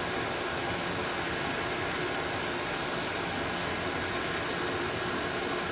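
Steady sizzle and hiss from mini pancakes cooking in butter on a griddle over a lit gas burner, with a faint steady hum under it.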